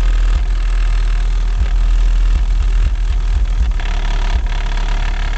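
Loud, bass-heavy rap music played through three 12-inch Crunch Groundpounder subwoofers driven by a Kicker KX1200.1 amplifier. The deep bass beats pulse and dominate the sound.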